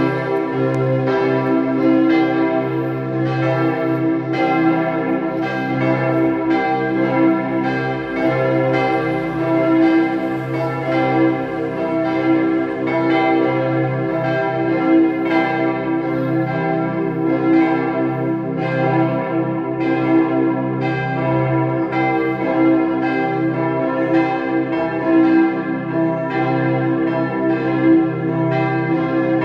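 Church bells ringing continuously, new strikes coming about every half to one second over a long, layered ring.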